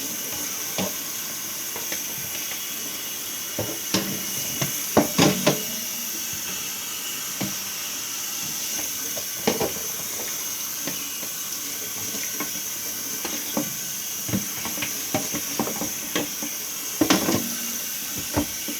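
Water running steadily from a tap while plastic fridge parts are washed, with scattered knocks and clunks of the parts against the sink, the loudest about five seconds in and near the end.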